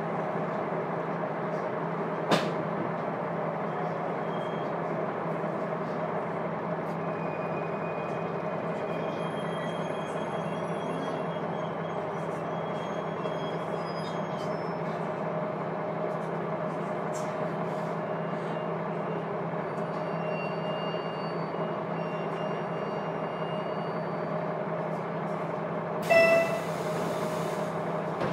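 Diesel engine of a KiHa 200 railcar running with a steady drone, heard from the cabin seat directly above the engine. A sharp click comes about 2 s in, and a brief loud hiss with a tone in it sounds about two seconds before the end.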